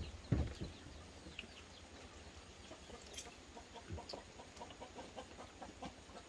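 Faint clinks and taps of spoons on plates and bowls as people eat, with a dull thump about a third of a second in. Faint short clucking calls sound underneath.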